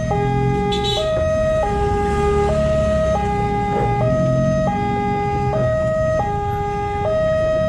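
Railway level-crossing warning alarm sounding as the barrier comes down: two tones alternating steadily, each held for under a second, over the low rumble of waiting road vehicles' engines.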